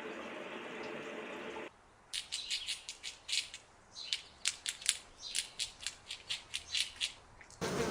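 A steady hiss at first, then a bird giving many short, sharp high-pitched chirps and squawks in quick, irregular succession.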